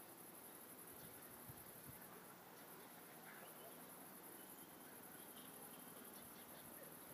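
Near silence: a faint outdoor hush with a high, steady chirring of insects.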